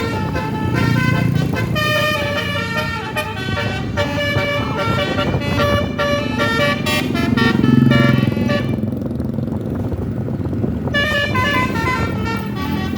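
Basuri telolet multi-note bus horn playing a quick melody of short, changing notes over the low running of the bus engine. The horn stops for about two seconds a little after the middle, then starts up again.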